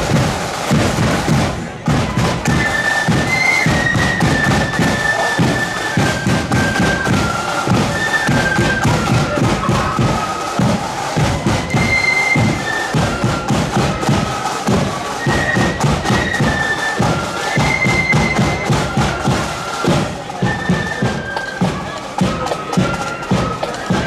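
Marching flute band playing a tune in unison over snare and bass drums, the melody stepping up and down against a dense, steady drum beat.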